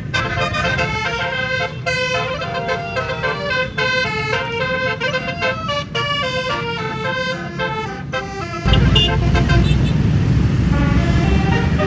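A bus's multi-note 'basuri' musical air horn playing a melody, one short note after another, over a low engine rumble. About two-thirds of the way through, a louder low rumble takes over and the horn notes fade to faint.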